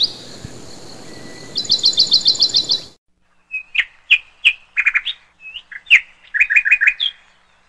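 Birds chirping: quick trills of falling chirp notes repeated over a faint hiss that cuts off about three seconds in, then separate sharp chirps and short trills with nothing behind them.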